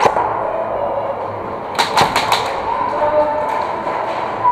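Airsoft gunfire: one sharp crack at the start, then a quick burst of about five cracks about two seconds in, over a steady background din.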